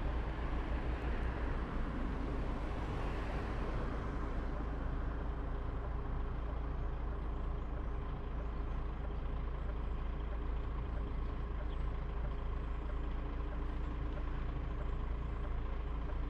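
DAF XF106 truck driving, its engine and road noise a steady, even drone with a strong low rumble, with a slight swell of hiss about two to four seconds in.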